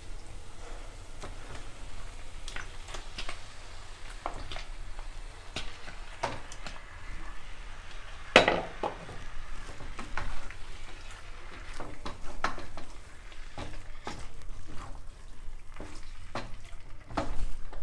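Chicken frying in a pan of spiced tomato masala, sizzling, while a spoon stirs and knocks against the pan in scattered clicks; the loudest knock comes about eight seconds in.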